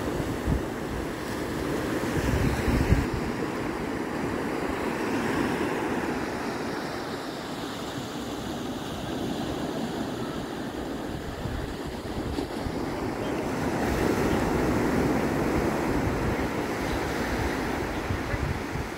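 Small ocean waves breaking and washing up a sandy beach, with wind buffeting the microphone. The wash swells about three seconds in and again around the middle-to-late part.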